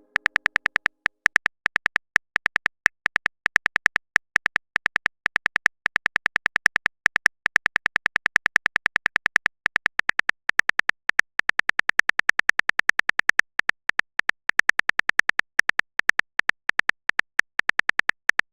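Phone keyboard typing sound effect: a fast, uneven run of short, sharp key clicks, about eight a second, with brief pauses between runs.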